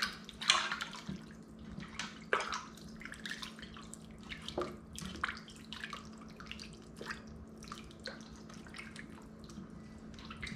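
Water splashing and dripping irregularly as raw chicken is rinsed by hand in a bowl of water in a sink, to wash off the salt, over a faint steady hum.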